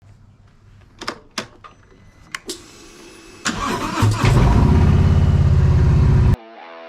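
A few sharp clicks, then a car engine cranking and starting at about three and a half seconds, running loud with an even low pulse until it cuts off abruptly near the end.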